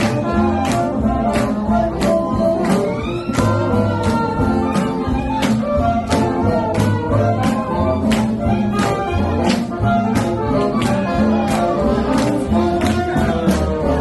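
Swing jazz recording with a singer, brass and a steady drum beat, played for social dancing.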